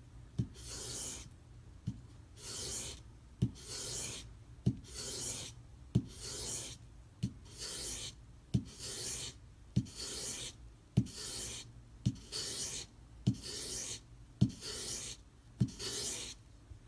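A knife blade is laid flat on worn 400-grit sandpaper and pulled backwards in repeated strokes, each a light tick as the blade touches down followed by a short gritty scrape, about one stroke every 1.2 seconds, thirteen in all. The strokes give the bevels a satin finish.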